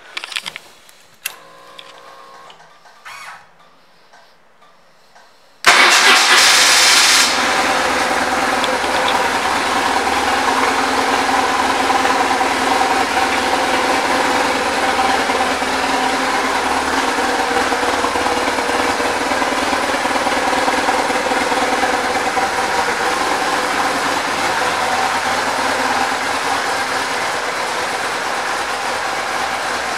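BMW R1150RT's air/oil-cooled boxer twin starting about five seconds in, catching at once, then idling steadily.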